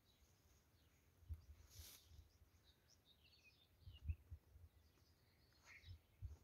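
Near silence outdoors: faint bird chirps and a few soft low thuds of footsteps in tall grass.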